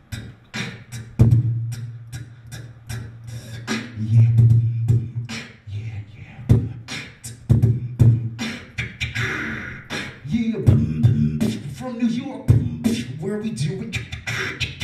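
A man beatboxing solo into a handheld microphone: fast sharp clicks and snare-like snaps over a deep humming bass line, without words.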